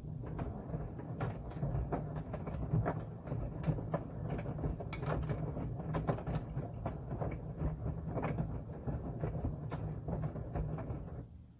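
Washing machine drum turning during a wash cycle: a steady motor hum with irregular clicking and knocking. It stops about eleven seconds in.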